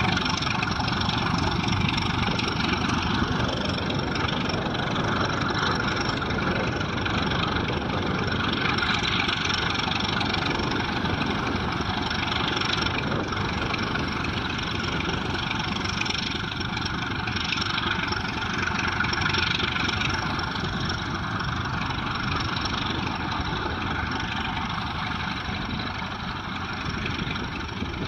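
ChME3 shunting diesel locomotive's six-cylinder engine working hard as the pusher at the rear of a freight train, together with the wagons rolling over the rails on a curve. The sound is steady and gets slightly quieter near the end as it moves away.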